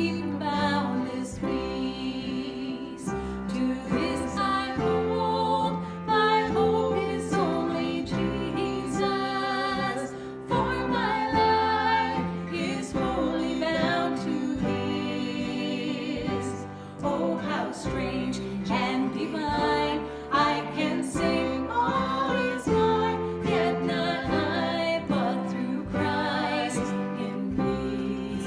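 Worship song: voices singing a melody over instrumental accompaniment.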